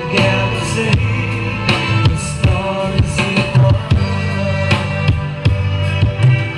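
Recorded music with a drum kit and a heavy, sustained bass line, played loud through a scoop subwoofer cabinet with a bullet tweeter as a speaker sound test. Drum hits land about twice a second over the bass.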